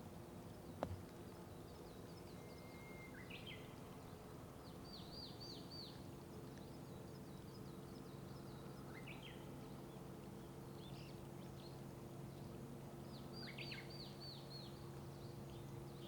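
Songbirds singing short phrases of quick, high, falling notes, in three bouts, over a steady low hum of distant road traffic. A single sharp click comes about a second in.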